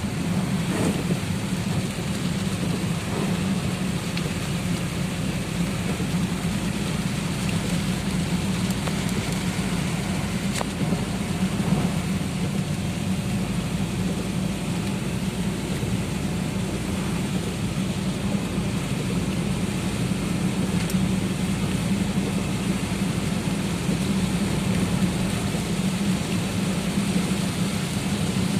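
Heavy tropical-storm rain falling steadily, with a low, even rumble underneath.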